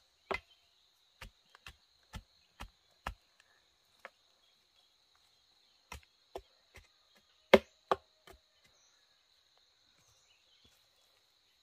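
Chopping with a blade: about fourteen sharp strikes in two runs, a second or so apart or faster, the loudest about seven and a half seconds in.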